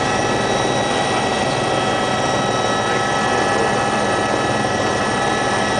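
Steady cabin noise of a Eurocopter AS355 Twin Star twin-turbine helicopter in flight: a constant turbine whine over the rotor and airflow noise.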